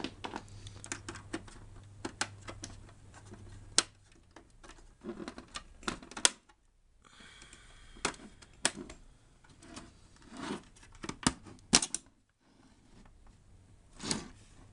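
Irregular sharp clicks and taps of plastic parts being handled and pried inside an opened PlayStation 4 console, some in quick clusters. A low hum runs under the first few seconds and then stops.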